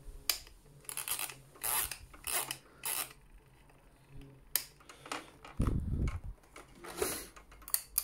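Short clicks and scraping rubs from the plastic rotary control knobs of a box fan being turned and its plastic housing handled, with a dull thump a little past halfway.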